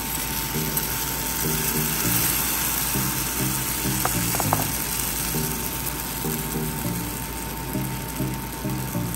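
Pancake batter sizzling as it is poured onto the hot plates of an electric waffle maker, a steady hiss, over background music with a low, repeating bass line.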